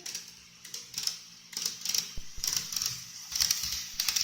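Model train of a JR 187 series railcar running on its track, its wheels clicking over the rail joints in quick clusters: the click-clack of a running train.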